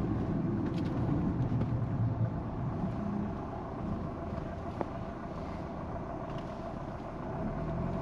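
Diesel Fiat Toro heard from inside the cabin while driving over road undulations: a steady engine and road rumble. The suspension no longer creaks, now that the bar that used to squeak has been fixed.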